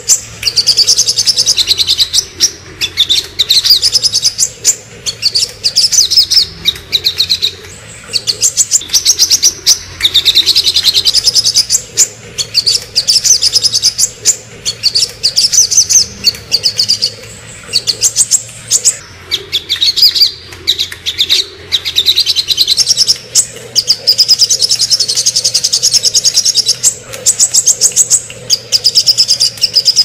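Male olive-backed sunbird (sogon) singing hard: fast, high trilled phrases of rapidly repeated notes, each a second or two long, following one another with only brief breaks.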